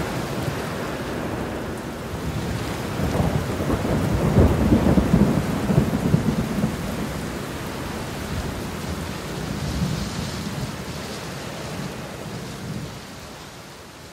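Steady rain with low rolling thunder, loudest about four to six seconds in, then slowly fading out.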